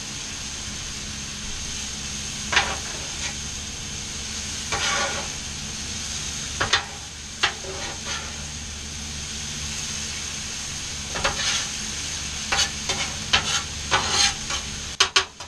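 Potatoes, zucchini and onions sizzling steadily on a hot flat-top griddle, with metal spatulas scraping and clacking against the cooking surface now and then as the vegetables are turned, several in quick succession near the end.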